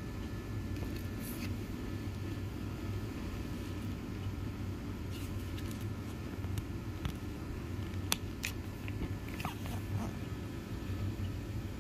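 A steady low hum, with scattered clicks and brief rustles of glossy brochure pages being handled and turned, mostly in the second half.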